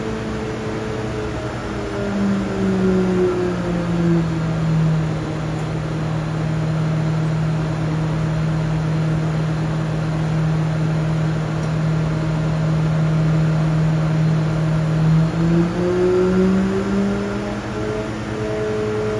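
Stroked 1551 cc Suzuki Hayabusa inline-four running on an engine dyno during its break-in and warm-up. Its pitch eases down a few seconds in, holds steady for about ten seconds, then climbs again near the end as the engine is stepped through the rev range for air-fuel mapping.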